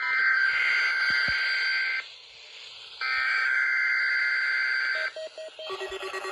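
Emergency Alert System SAME header data bursts sent over a weather radio station for a required weekly test: two harsh, buzzing bursts of about two seconds each, a second apart. A few short beeps follow about five seconds in, and a steady low tone starts near the end.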